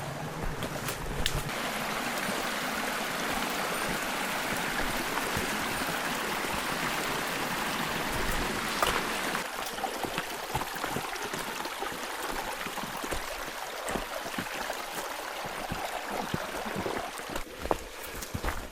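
A small mountain stream babbling steadily. It is a little louder in the first half and eases after about nine seconds, with a few light knocks near the end.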